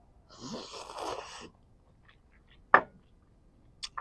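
Noodles being slurped into the mouth for about a second, a noisy, airy suck. A single sharp click a little after two and a half seconds in, then a few faint clicks near the end.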